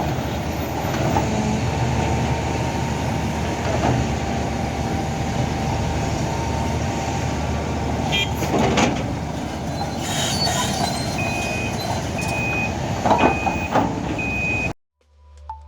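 Heavy earthmoving machinery running with a steady diesel rumble and a few metallic knocks. Near the end a reversing alarm beeps four times, then the machine sound cuts off abruptly.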